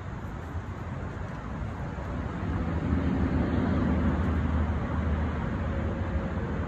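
Low, steady outdoor rumble that grows louder about two and a half seconds in and eases off toward the end.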